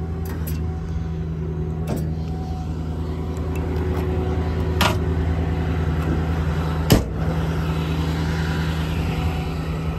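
The Ford F550's 6.4 Power Stroke V8 diesel idling steadily with the PTO engaged, driving the hydraulic crane while it is worked. Two sharp clicks sound about five and seven seconds in.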